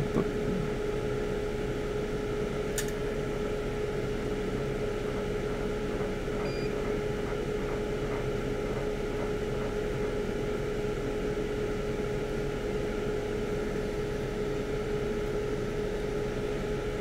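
Steady fan-like hum with one constant mid-pitched tone running underneath, and a single faint click about three seconds in.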